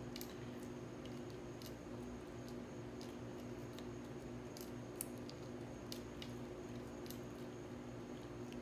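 Faint clicks and small crackles of a silicone mold being flexed and peeled off a cured resin pendant, with one sharper click about five seconds in, over a steady background hum.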